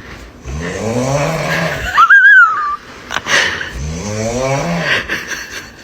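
A person snoring with a rasping, chainsaw-like snore: two long snores whose pitch rises and falls. Between them, about two seconds in, comes a loud, brief, high whistling squeal.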